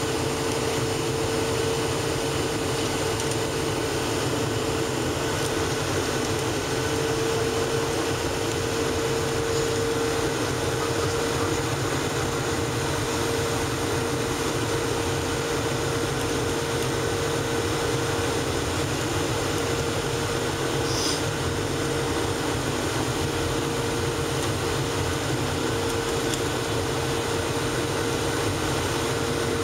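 Steady cabin noise of a Boeing 737-700 on approach, heard over the wing: an even roar from its CFM56-7B engines and the airflow, with a steady hum running through it.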